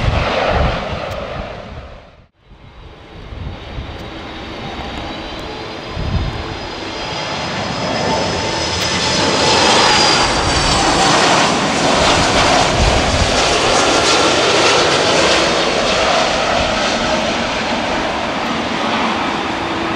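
Jet airliner's engines on landing approach: a steady rush with faint whining tones that grows louder and holds from about halfway, with low bursts of wind on the microphone. At the very start, before a sudden cut, another jet's departure noise is heard.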